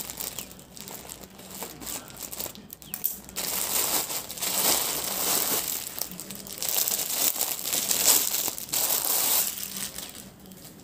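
Scissors cutting into a plastic courier mailer, then thin plastic packaging crinkling and rustling as a dress wrapped in a clear plastic packet is pulled out and handled. The crinkling is loudest from about three and a half to nine and a half seconds in.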